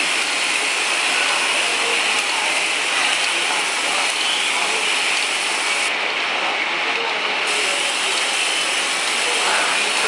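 Rotary glass-bottle filling and screw-capping machine running: a steady mechanical clatter with faint ticking from its capping heads and star wheel.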